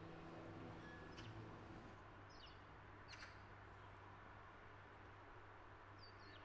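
Near silence: the last notes of a grand piano die away over the first two seconds, leaving faint room tone with a low hum and a few faint, short, high chirps.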